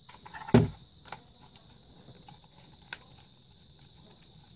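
Screwdriver driving screws into a hot-air brush's plastic housing: a sharp knock about half a second in, then a few faint scattered clicks, over a faint steady high hiss.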